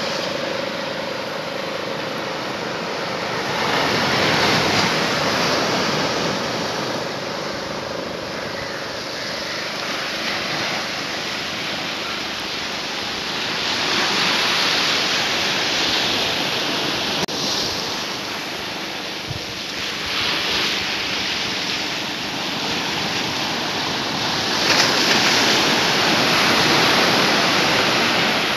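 Sea waves breaking and washing up a sandy beach, the surf swelling in surges every several seconds and loudest near the end.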